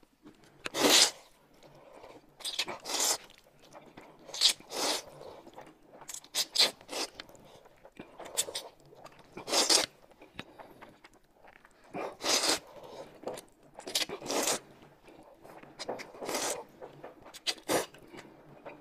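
Close-up eating sounds: noodles being slurped and corn soup sipped from a spoon, a string of short loud slurps every second or two with quieter chewing between.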